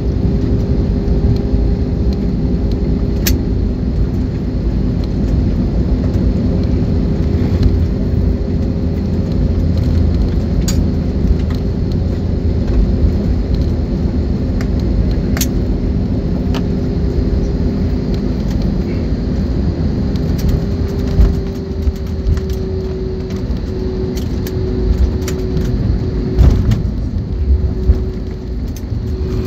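Jet airliner rolling out on the runway after touchdown, heard from inside the cabin with its ground spoilers raised: a loud, steady engine and wheel rumble with an even hum that wavers over the last several seconds. A few sharp clicks from cabin rattles come through it.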